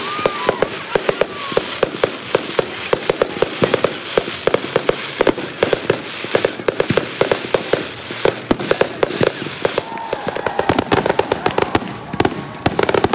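Fireworks going off in a fast, dense run of bangs and crackles, one after another with no pause.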